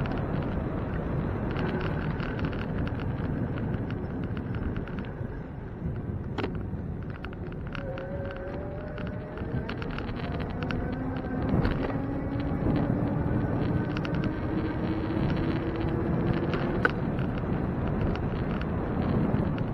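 Wind buffeting the microphone on a moving bicycle over a steady road rumble, with a few sharp knocks. A faint hum rises slowly in pitch over the second half.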